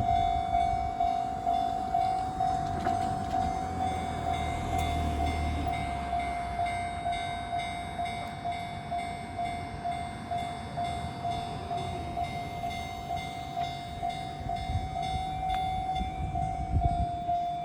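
Japanese level-crossing warning bell ringing steadily, an even electronic ding about twice a second, as the barriers are down. Beneath it a train runs past with a low rumble that swells about four seconds in and again near the end.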